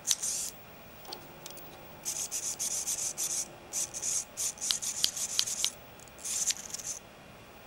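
Small motor and rack-and-pinion gearing of a SqueezeBlock haptic device whirring in a run of short, high, noisy bursts as its pressure plates are squeezed and released again and again. A few sharp clicks come in among the bursts.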